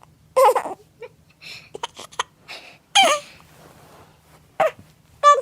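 A baby crying in short fussy bursts, four brief cries, the one about three seconds in falling in pitch.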